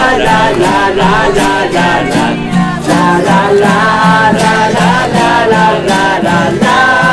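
Live group singing: many voices singing a song together over strummed acoustic guitar, with a steady beat of strokes.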